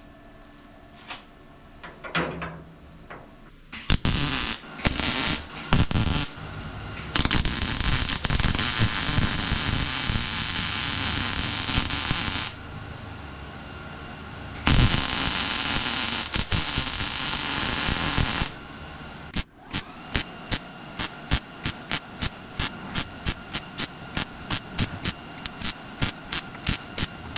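Metalworking power tools repairing rust in a car body's A-pillar. There are long stretches of harsh steady noise, broken by a short pause. Then, from about two thirds of the way in, comes a fast, even run of short pulses, about three a second.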